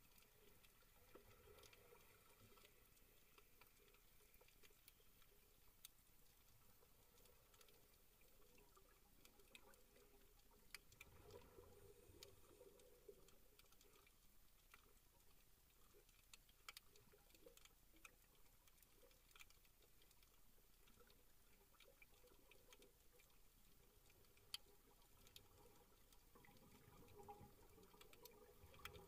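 Very faint underwater coral-reef ambience: a soft hiss scattered with sharp clicks and crackles, with a low rumble about twelve seconds in and again near the end.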